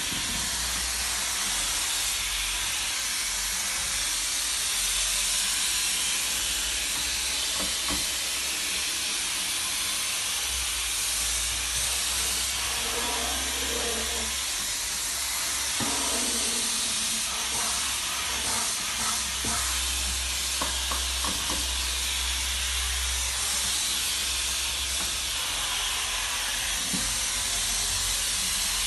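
Steam cleaner hissing steadily as its floor nozzle is worked over a hard floor, with scattered light clicks and knocks from the nozzle and wand.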